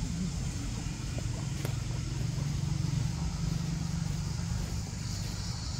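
A steady low rumble that swells about halfway through, with a continuous high drone of insects above it that grows louder near the end.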